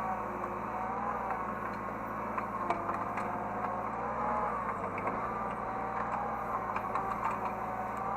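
Hydraulic excavator running, heard from the operator's seat: a steady engine drone under a whine that rises and falls in pitch, with a few light clicks.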